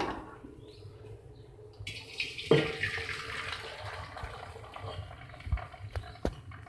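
Hot water and boiled macaroni poured from a steel saucepan through a wire-mesh strainer into a steel bowl. The splashing pour starts about two seconds in with a sharp metal clank, then slowly thins out, and two light knocks come near the end.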